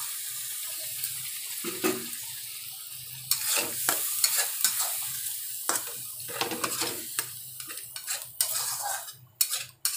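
Ground masala paste sizzling in hot oil in a steel kadhai as water from the mixer jar is poured in. From about three seconds in, a steel spatula stirs the paste, clicking and scraping against the kadhai over the steady sizzle.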